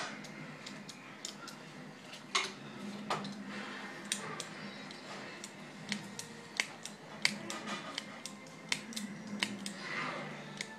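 Hand pruning shears snipping through the roots of a pepper plant's root ball, cutting it back: a dozen or more sharp snips at irregular intervals.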